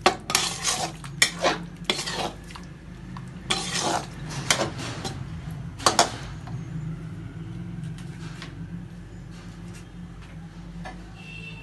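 A metal spoon stirring and scraping in a cooking pan, with sharp clinks and clatters against the pan over the first six seconds, then a low steady hum.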